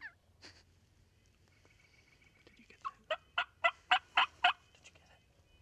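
A turkey yelping: a run of about seven short, evenly spaced calls, about three a second, growing louder over a second and a half, about three seconds in.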